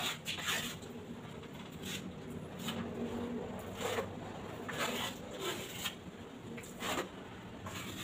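Tile nippers biting chips off the edge of a narrow ceramic tile strip: a handful of short, crunchy snaps spread a second or so apart.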